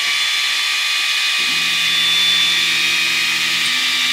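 Wainlux X2 laser engraver's head cooling fan running at full speed: a loud, steady high-pitched whine over rushing air, insanely loud, like a jet engine trying to take off.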